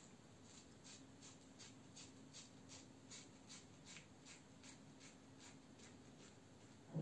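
Muhle R89 double-edge safety razor with a Treet Platinum blade scraping lathered stubble in short, quick strokes, about three a second, faint over a low steady hum. A single thump right at the end.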